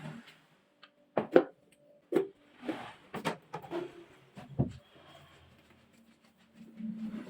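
Household cleaning and tidying: a series of light knocks and clatters as objects are picked up and set down, about eight in all, the loudest a little over a second in.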